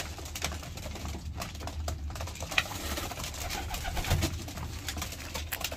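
A flock of domestic pigeons in a small wooden loft cooing softly, with many small clicks and taps throughout.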